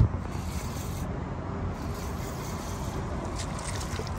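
A spinning reel being cranked against a fish on a bent rod, a rasping rub under steady wind noise. There is a sharp knock right at the start.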